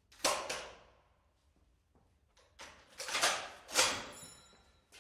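M2 Browning .50 caliber heavy machine gun: a handful of separate sharp metallic clacks and bangs, each with a decaying tail. Two come close together about a quarter second in and three or four more fall in the second half, the last leaving a brief high metallic ring.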